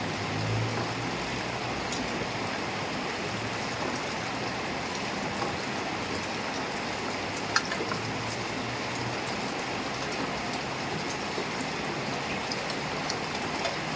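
Heavy rain falling steadily, a dense even hiss, with one sharp tick of a drop about halfway through.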